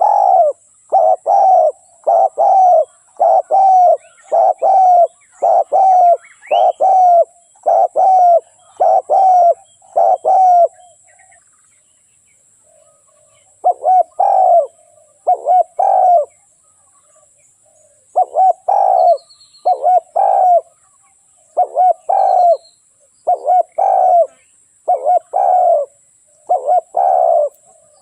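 Spotted dove cooing: a long string of short, low coos, a little more than one a second, that breaks off for a few seconds about eleven seconds in and then starts again.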